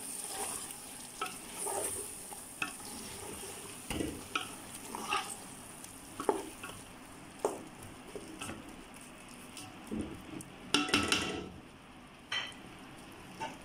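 Wooden spatula stirring prawn masala in a metal pot, with scattered scrapes and taps against the pot over a steady sizzle from the frying masala. The stirring clatters loudest about eleven seconds in.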